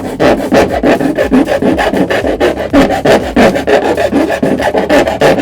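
Hand file rasping back and forth in rapid, even strokes, several a second, enlarging a freshly drilled hole in a scooter panel.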